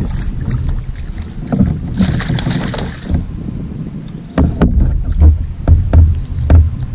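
Wind rumbling on the microphone over water lapping at a fishing kayak, with scattered sharp clicks and knocks as a caught fish is worked off the hook and released; a brief hiss comes about two seconds in, and the noise steps up a little past the halfway point.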